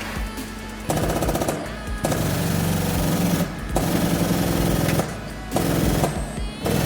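A pneumatic tool chattering in several short bursts of rapid repeated strokes, starting and stopping about five times. It is working a pull on dented steel body panel.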